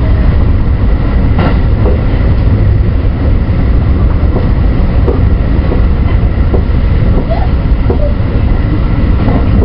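JR West 223-2000 series electric train running at speed, heard from inside the front car: a steady rumble of wheels on rail, with a few irregularly spaced clicks from the wheels over the track.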